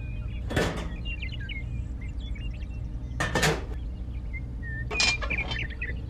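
Small hard toy parts of plastic and metal clattering as they are handled and set down: three short knocks, about half a second in, around three seconds and near five seconds, over a low steady hum.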